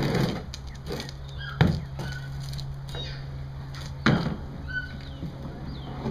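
Two sharp knocks about two and a half seconds apart as a monkey knocks a plastic bucket about on the enclosure floor, with faint short chirps in between.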